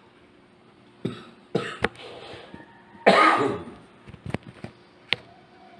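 A person coughs, the loudest sound coming about three seconds in after a couple of smaller bursts. A few short, sharp knocks or clinks are heard around it.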